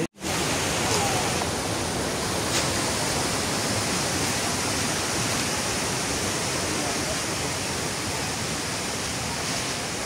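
A steady, even rushing noise with no distinct events, apart from a couple of faint ticks.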